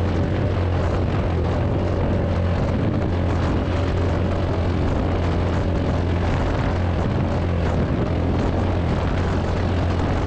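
Off-road vehicle engine running steadily at an even speed, with a dense rushing noise over it.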